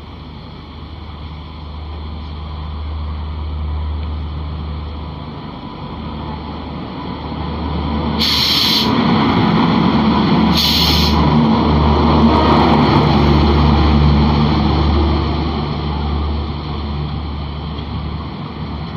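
Rumble of an express train hauled by a WAP-7 electric locomotive passing close on the adjacent track, over the running noise of the train being ridden. It swells as the locomotive and coaches go by and eases off near the end, with two short, sharp high-pitched blasts about eight and ten and a half seconds in.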